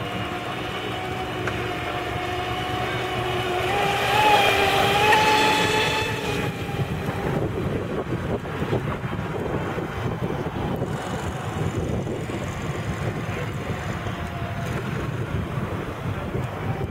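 Radio-controlled Spartan speedboat running fast across choppy water: its motor and propeller make a steady whine that grows loudest and wavers in pitch about four to six seconds in as the boat passes close. After that the whine fades under wind rumble on the microphone.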